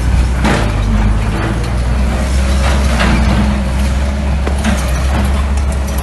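Mini bulldozer's diesel engine running steadily, with a few short rushing noises over it, about half a second in and again about three seconds in.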